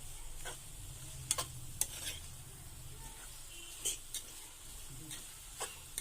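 Pasta and vegetables sizzling in a hot pan while being stirred, with a utensil knocking against the pan about six times.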